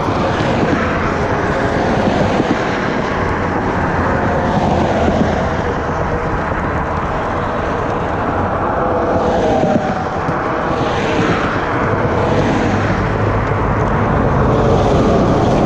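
Steady road-traffic noise of cars and SUVs driving through a wide intersection, with a few vehicles swelling and fading as they pass in the second half.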